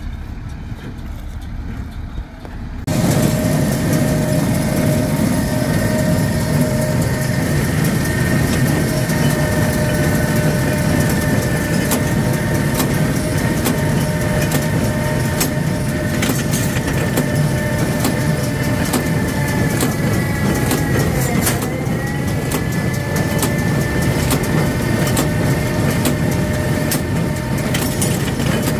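New Holland small square baler and its tractor running at close range: a loud, steady mechanical din from the pickup and feeder working alfalfa. It is fainter and mostly low rumble for the first three seconds, then loud once close to the machine; the running pitch dips briefly and recovers about two-thirds through.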